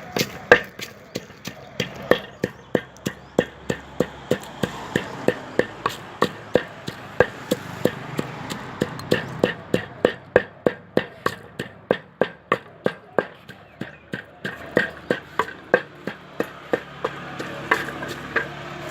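Pestle pounding papaya salad in a mortar: sharp, regular knocks about two to three a second, thinning out briefly near the middle.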